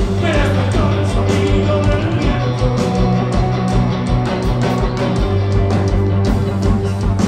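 Rock band playing live: electric guitars and bass guitar over a drum kit, with a fast, steady kick-drum beat.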